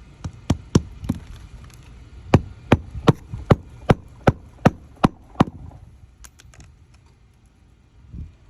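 A hammer striking repeatedly on the roof: about a dozen sharp blows in a steady rhythm of two to three a second, stopping about five and a half seconds in, followed by a few faint clicks.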